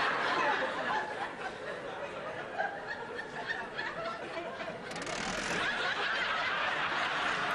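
Studio audience laughing, the laughter growing louder and fuller about five seconds in.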